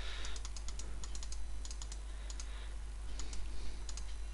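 Computer keyboard typing: irregular, quick key clicks, with a steady low hum underneath.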